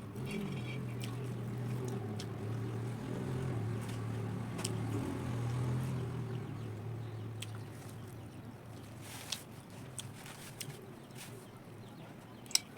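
A low, steady motor drone that fades out about two thirds of the way through, with a few short clicks and smacks of eating over it.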